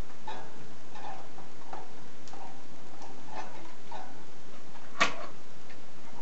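Light, irregular clicks and taps of small tools and metal parts being handled on a wooden workbench, with one sharper click about five seconds in.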